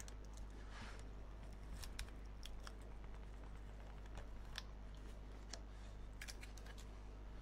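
Wood-carving knife cutting into wood: a handful of faint, crisp snicks scattered through, over a steady low hum.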